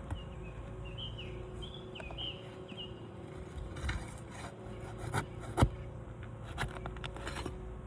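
Scattered sharp metal clicks and scrapes as roofing nails are worked loose from asphalt shingles, with the sharpest knock a little past halfway. A string of short, high chirps runs through the first three seconds.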